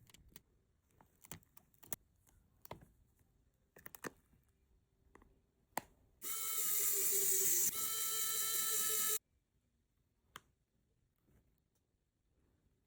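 Small clicks and taps of hand tools working on a smartphone during a screen replacement, scattered through the first half. Then about three seconds of a loud, steady whine with a high hiss that starts and cuts off suddenly, like a small motorised tool. One last click follows.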